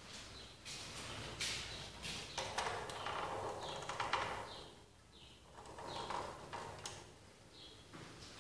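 Failing Narva LS 40 T12 fluorescent tube and its fitting flickering and restriking: irregular swells of buzzing hiss broken by sharp clicks, the sounds of a worn-out tube at end of life cycling between dim glowing ends and full light.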